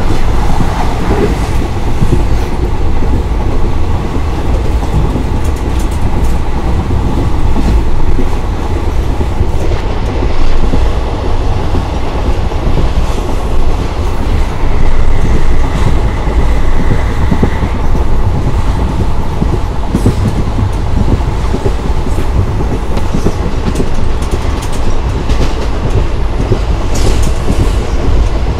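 ICF passenger coach running along the track, heard from its open doorway: a loud, continuous rumble of wheels on rail with the clickety-clack of rail joints. A thin, high whine from the wheels runs for about three seconds in the middle.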